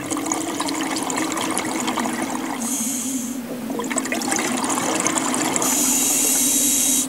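Underwater sound of a scuba diver's breathing through the regulator: bubbles gurgling and crackling over a low steady hum. Two spells of hiss come through, a short one near the middle and a longer one at the end, where the sound cuts off sharply.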